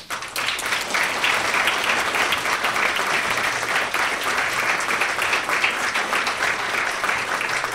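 An audience applauding, many hands clapping; it breaks out just as the talk ends and keeps up at an even level.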